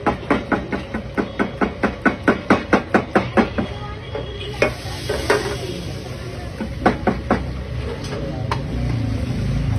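Coil spring whisk beating omelette egg mix in a steel bowl: rapid, even clinks of metal on the bowl, about five a second, for the first three and a half seconds. From about four and a half seconds in, butter sizzles in the frying pan, with a few scattered clinks of the whisk.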